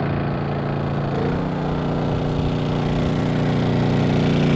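Small engine-driven generator running steadily, a loud engine hum that dips slightly in pitch about a second in.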